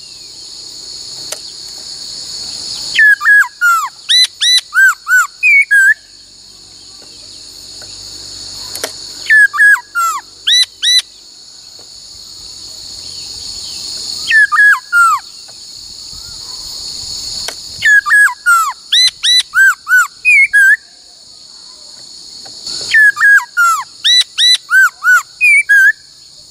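Laughingthrush singing: five bursts of loud, clear whistled notes in quick runs, each note sliding down and back up, with pauses of a few seconds between bursts. A steady high insect-like chirring runs underneath.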